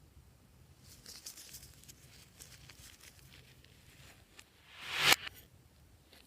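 Fluffy slime being worked by hand: soft scattered crackles, then a louder tearing crackle that swells and cuts off sharply about five seconds in.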